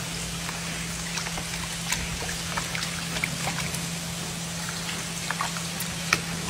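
Water swirled by hand in a plastic basin of fish eggs during hand fertilization, with small splashes and scattered drips.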